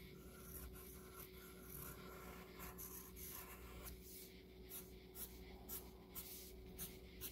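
Faint pencil strokes scratching on paper as a drawing is sketched: short strokes one after another, most distinct in the second half at about two a second.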